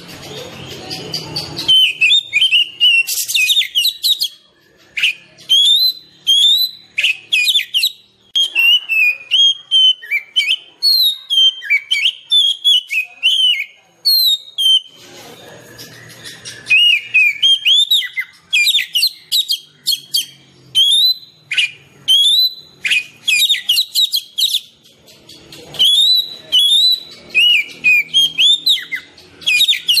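Oriental magpie-robin (kacer) singing: long runs of loud, varied whistled phrases and quick chirps, broken by short pauses about four, fourteen and twenty-four seconds in.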